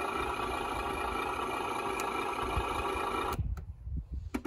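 HG-P602 Cougar MRAP RC truck's sound unit playing a simulated engine idle through its speaker, steady and loud, then cutting off suddenly about three seconds in as the engine sound is switched off. A few light clicks follow near the end.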